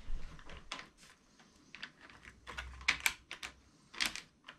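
Light, irregular clicks and taps of an HO-scale model locomotive being set onto the track by hand, its wheels and plastic body knocking on the rails as it is lined up. The loudest clicks come about three and four seconds in.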